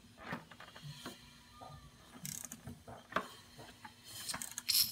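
Ratchet wrench clicking in uneven strokes as the crankshaft of a Ford 5.4L 3V V8 is turned over by hand, rotating the camshafts. The engine is being brought round to the timing position for cylinder one against compression.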